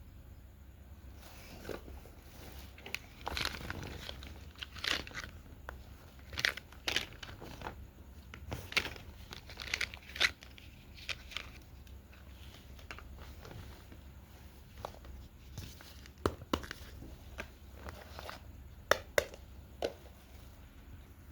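Plastic packaging crinkling and tearing in irregular rustles as miniature toys are unwrapped, with a couple of sharp clicks near the end.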